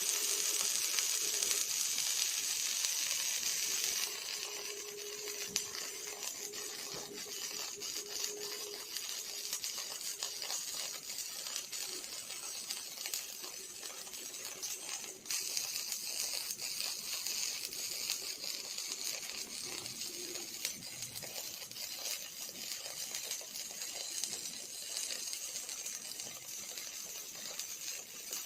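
Robotic MIG/arc welding: the welding arc of an OTC industrial welding robot, a steady crackling hiss. It is louder for the first four seconds, then continues slightly softer with a brief dip partway through.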